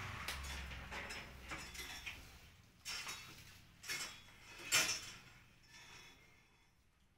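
A bundle of PVC-insulated electrical wires rustling and scraping as it is gathered and pulled through the hands, with a few sharp knocks and clicks, the loudest about five seconds in.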